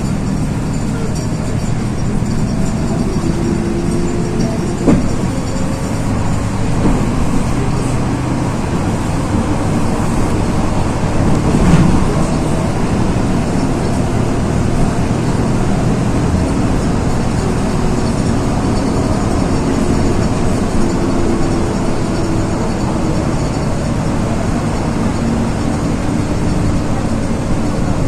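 Inside a LiAZ 6213.22-01 articulated city bus under way: steady engine and road noise, its engine note shifting now and then. There are two sharp knocks or rattles, about five and twelve seconds in.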